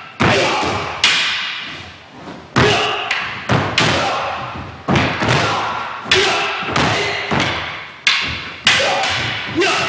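Wooden naginata and wooden sword (bokuto) striking each other in a series of sharp clacks, about a dozen, each ringing out in the hall. Shouted kiai come in between the strikes.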